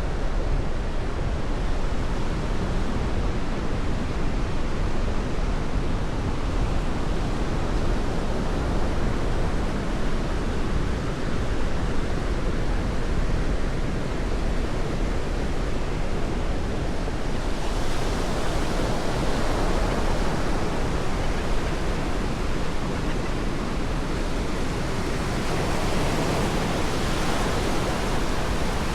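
Ocean surf washing on a sandy beach, a steady wash of noise that swells as waves break, once about two-thirds of the way in and again near the end.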